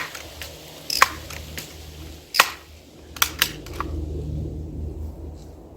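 Crosman 760 Pumpmaster BB gun being pumped: sharp clacks of the pump arm about a second apart, then three lighter clicks in quick succession as the gun is readied to fire.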